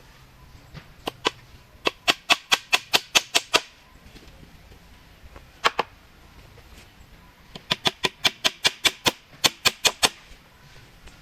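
Quick runs of sharp knocks from building work, about six strikes a second: two runs of about a dozen strikes each, with a single knock between them.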